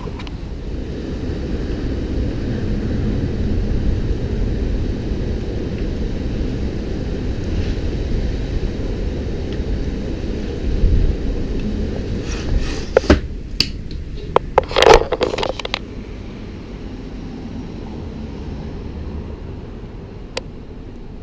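Strong wind buffeting the microphone as a steady low rumble, with a cluster of loud crackling blasts a little past the middle. The rumble eases near the end.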